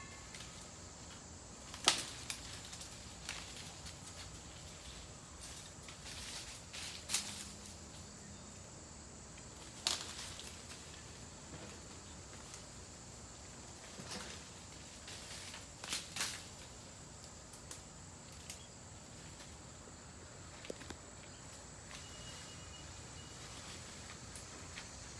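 A few isolated sharp knocks and cracks, about half a dozen spread apart, over a faint steady background with a thin high hiss.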